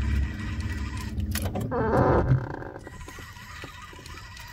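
A fishing reel being cranked with a rough grinding, a reel in need of grease or oil. A low rumble fades out after about a second and a half, and a harsher, pitched stretch of the reel's noise comes about two seconds in.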